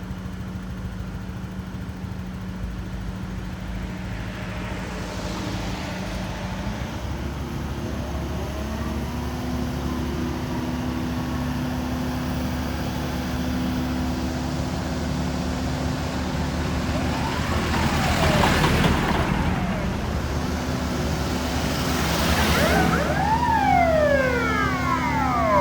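Vehicle engine running steadily under road noise while driving, its pitch stepping up partway through. Twice, near the middle and near the end, a louder swell passes, carrying a tone that rises and then falls.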